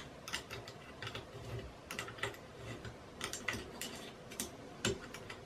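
Light, irregular metal clicks and taps from an Allen key working bolts loose on a Creality CR-10 3D printer's frame. About a dozen sharp ticks come unevenly spaced.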